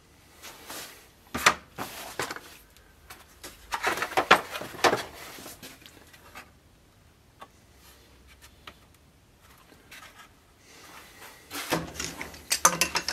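Thin pine boards handled on a wooden workbench: scattered knocks and clatters of wood set down and shifted, with sliding scrapes. A quieter stretch in the middle, then a busier run of knocks near the end.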